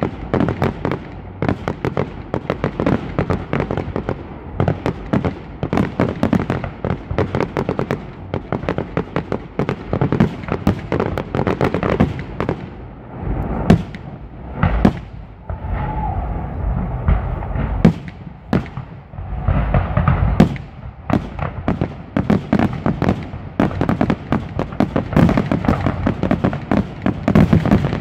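Fireworks display: a rapid barrage of aerial shells bursting and crackling, with a few heavier booms around the middle. The bursts thicken into a dense volley near the end.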